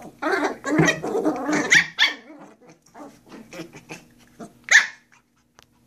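Small white puppies play-fighting: about two seconds of rough growling broken by high yips, then a pause with scattered light ticks and one sharp yip near the end.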